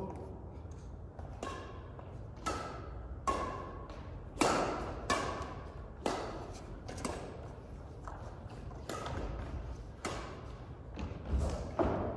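Badminton rackets hitting a shuttlecock back and forth in a rally: a string of sharp pings about once a second, each with a short echo from the hall.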